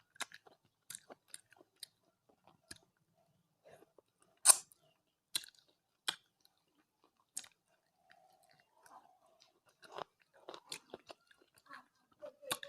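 Close-miked chewing and wet mouth clicks and smacks of someone eating rice with curry, in scattered short bursts, the loudest about four and a half seconds in.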